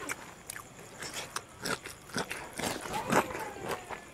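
Close-miked eating by hand: wet chewing and lip-smacking of pork curry and rice, with fingers squishing rice in the bowl. It comes as a string of irregular short clicks and smacks, loudest about three seconds in.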